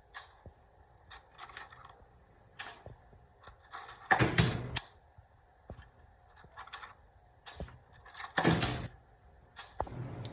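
Hand work with small tools and parts: scattered clicks and knocks, with two louder half-second scraping clatters about four and eight and a half seconds in.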